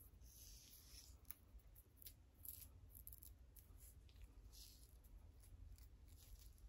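Fingernails scratching a dry, flaky scalp through coarse hair, in faint, short, crisp strokes at an irregular pace, with one sharp click about a second in.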